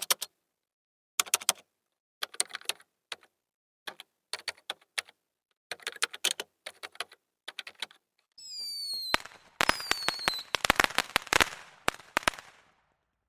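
Sound effects: clusters of keyboard typing clicks for several seconds, then two falling whistles and a rapid run of firework pops and crackles that die away near the end.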